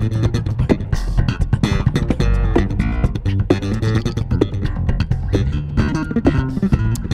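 Two electric basses playing an instrumental duet, one holding a low groove while the other plucks quick melodic lines in the higher register.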